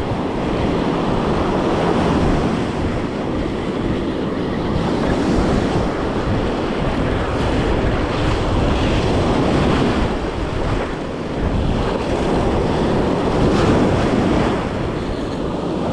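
Ocean surf breaking and washing up the beach in rolling surges, with wind buffeting the microphone.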